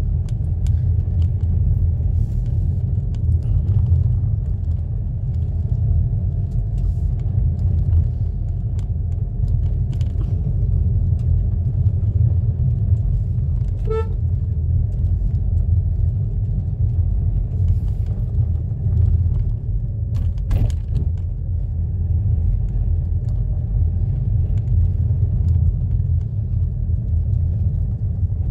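Steady low rumble of a car driving along a narrow paved road, heard from inside the cabin: engine and tyre noise. A brief high beep sounds about halfway through.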